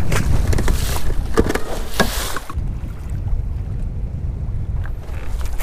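Wind rumbling on the microphone and choppy water lapping against a boat, with a few small knocks. The rumble and splashing are loudest at first and drop off about two and a half seconds in.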